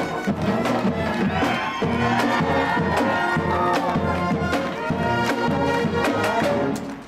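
Marching band playing: brass horns and saxophones over a steady beat of bass drum and cymbals.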